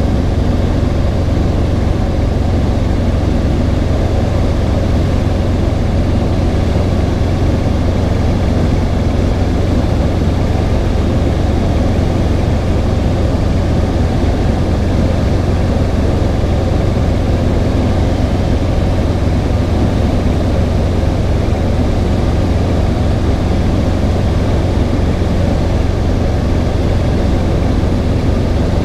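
Robinson R22 helicopter's piston engine and rotor running steadily in flight, heard inside the cabin: an even, unbroken noise with a strong low hum.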